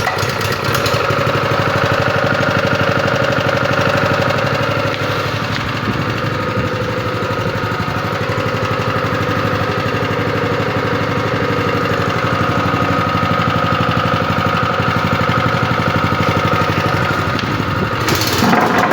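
Honda GX160 single-cylinder four-stroke engine on a Tiger TPC 5 tamping rammer running steadily just after starting. It grows louder near the end.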